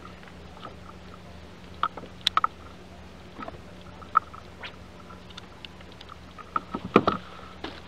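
Scattered sharp knocks and taps on a plastic fishing kayak as the catch and gear are handled aboard, the loudest cluster about seven seconds in, over a low steady hum.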